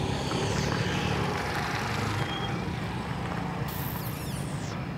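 Steady low hum of a vehicle engine running, with a short high hiss of about a second near the end.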